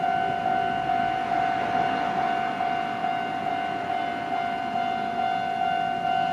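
Japanese railway level-crossing warning bell ringing steadily at about two strikes a second, a bright electronic tone, over a rushing noise.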